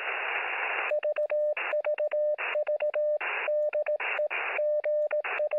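Radio static hiss, then a Morse code tone keyed in dots and dashes, with short bursts of static between the characters, all with the narrow sound of radio audio.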